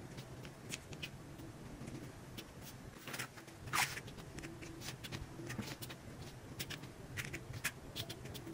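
Diamond-painting drill pen tapping small resin drills onto the canvas and scooping through loose drills in a plastic tray: faint scattered clicks and light rattles, with a louder rattle a little before the middle.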